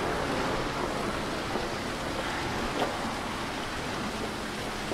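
Outdoor street ambience: a steady rushing wash of noise, with a faint click about three seconds in.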